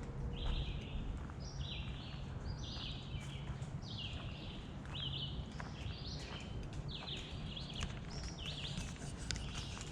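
Birds calling over and over: short, harsh calls in quick succession, several voices overlapping. Scattered light ticks and a low steady rumble run underneath.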